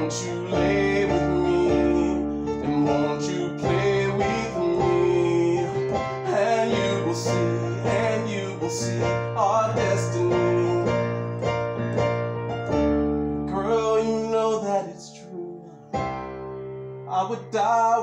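Piano played with chords and a melody, a man's voice singing over it. The playing drops back and goes quieter for a moment shortly before the end, then picks up again.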